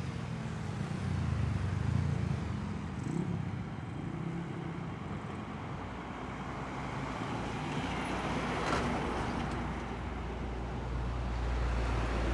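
Heavy diesel trucks driving past on a road: engine drone rising briefly in pitch in the first few seconds, a rush of tyres and air as one passes a little past the middle, and a deep low rumble near the end.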